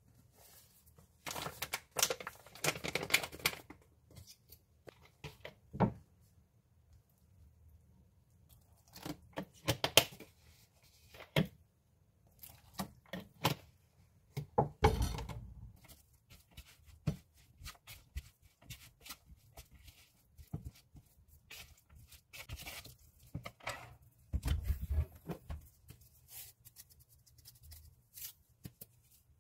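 Zucchini strips, flour and liquid being mixed into a batter with wooden chopsticks in a mixing bowl: scattered clicks and scrapes in short bursts, with a dull thump about halfway through.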